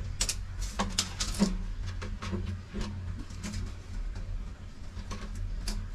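Irregular sharp knocks and clicks from hard objects being handled, over a steady low hum.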